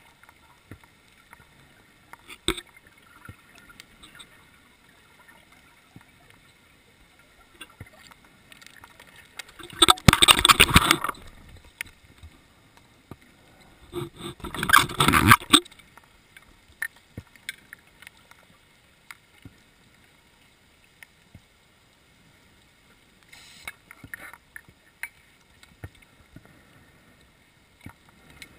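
Scuba diver's regulator exhausting bubbles underwater: two loud rushes of exhaled bubbles, each about a second and a half long and some four seconds apart, with a weaker bubbling near the end and faint clicks and ticks in between.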